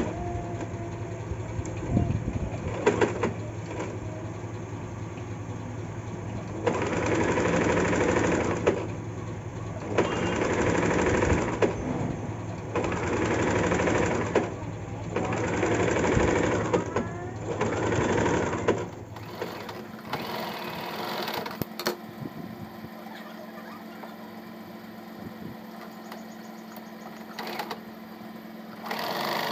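Small electric home sewing machine stitching fabric in about five short runs of a second or two each, with brief pauses between them. Later it is quieter, with a steady low hum and a few clicks.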